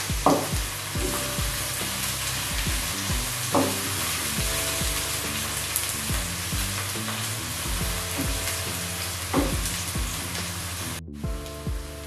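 Sliced onions, ginger and garlic sizzling in hot oil in a nonstick wok while they fry towards brown, stirred with a wooden spatula that scrapes the pan a few times. Near the end the sizzle drops away sharply.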